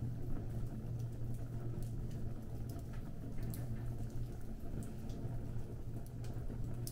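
Fire burning, crackling with many short, irregular pops over a steady low hum.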